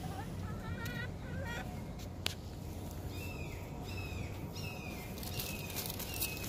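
Hens calling in the run with a wavering, trilling note in the first couple of seconds, then a string of short, falling bird chirps. A steady low hum lies underneath, and there is a single sharp click about two seconds in.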